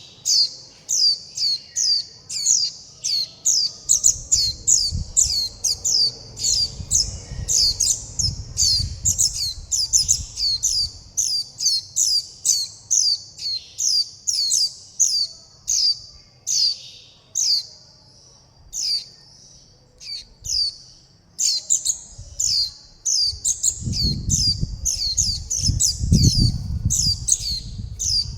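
Fledgling white-eye giving rapid, repeated high begging calls, about three a second, with a brief lull about two-thirds of the way through. A low rumble sits underneath twice.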